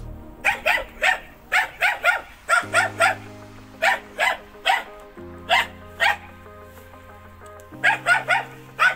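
A dog barking over and over, in quick runs of two to five barks with short gaps between. Under it, background music of slow held chords that change every two or three seconds.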